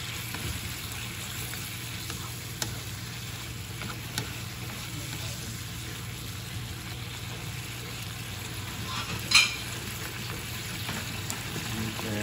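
Squid simmering in a fish-sauce glaze in a wok, sizzling steadily while wooden chopsticks stir it, with a few light clicks and one louder clink about nine seconds in.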